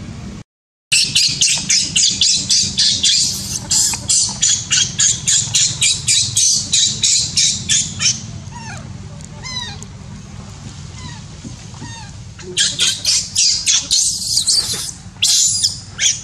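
Baby macaque crying in rapid runs of high-pitched squeals, about four to five a second, easing into a few short sliding calls midway and then starting again near the end.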